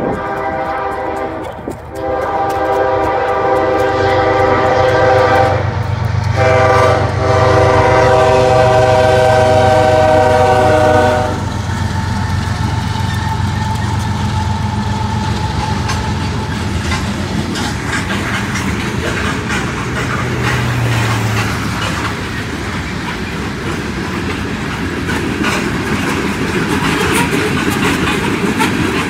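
Union Pacific diesel freight locomotives sounding a multi-note air horn in three blasts, the last ending about eleven seconds in, over the low rumble of the diesel engines. As the engines pass and the rumble fades, about twenty seconds in, the clatter of loaded coal hopper cars rolling over the rails takes over.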